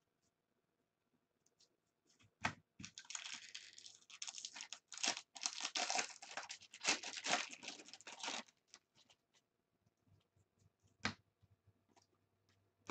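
Foil wrapper of a 2015 Bowman Draft Jumbo baseball card pack being torn open and crinkled by hand. It starts with two sharp snaps about two and a half seconds in, crinkles and tears for about five seconds, then stops, with one more click a few seconds later.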